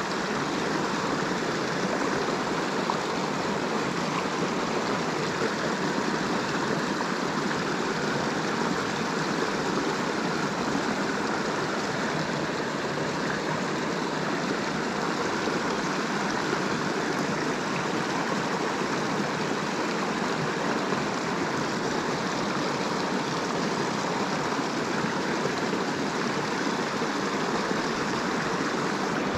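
River water rushing steadily past, a constant even flow with no breaks.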